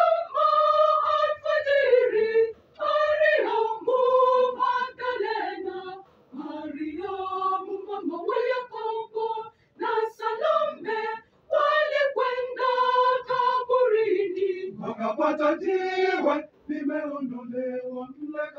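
Choir of women's and men's voices singing a Swahili hymn, in sung phrases broken by short pauses.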